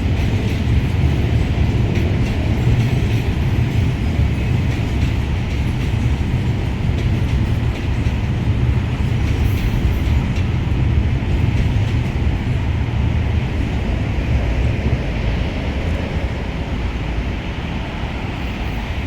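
Freight train running along the rails, a steady loud rolling noise of wheels on track that eases slightly near the end.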